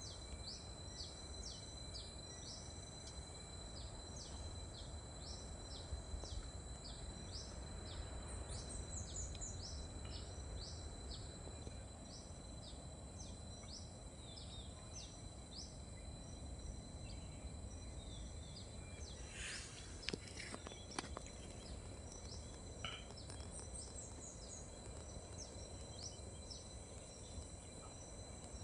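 Outdoor field ambience of insects and birds: a steady high insect whine with short repeated chirps about twice a second, a high descending bird trill twice, over a low rumble. A few faint clicks come about two-thirds of the way through.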